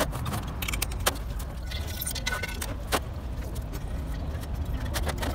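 Steel gears of a truck gearbox's gear cluster clinking and ringing against each other and the steel tray as the cluster is handled and stood upright, with sharp metallic clicks about a second in and again about three seconds in. A steady low rumble runs underneath.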